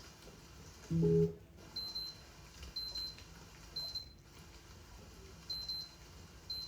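Electronic beeping: one short, low tone about a second in, then a series of short high-pitched beeps roughly once a second, like an alarm.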